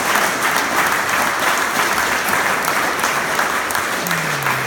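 Audience applauding steadily, a dense sustained clapping.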